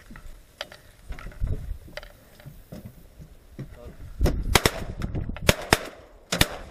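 Shotguns firing a rapid volley of about eight shots. The shots come from two hunters, start about four seconds in and are spread over about two and a half seconds.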